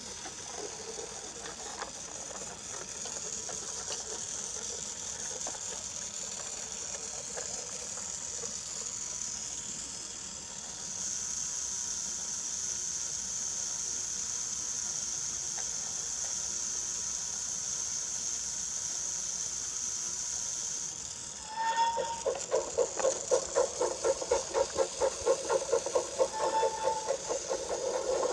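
Battery-powered Brio toy locomotive running on wooden track, its small electric motor giving a steady high whine. About three quarters of the way through, a regular clatter of about three to four knocks a second starts as the wheels run over the wooden track.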